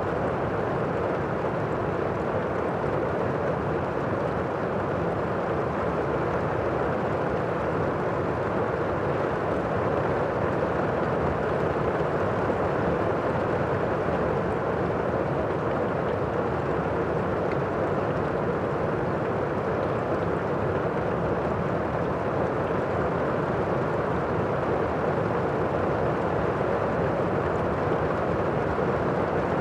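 Steady rain, a dull, muffled hiss with no single drops or thunder standing out.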